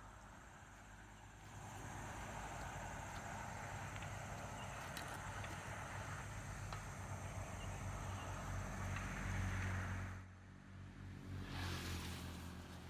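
A small engine running steadily, its low hum dropping out abruptly about ten seconds in and returning shortly after.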